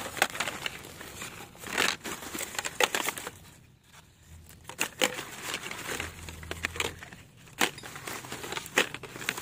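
Plastic rubbish bags and dry leaves crinkling and rustling as a hand shifts a stack of discarded phones, with several sharp clicks scattered through.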